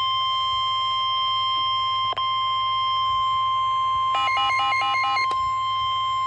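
Weather radio's 1050 Hz warning alarm tone: one steady, piercing tone, cut once by a brief dropout about two seconds in. About four seconds in, a quick run of short beeps plays over it for about a second. It heralds a National Weather Service severe thunderstorm warning.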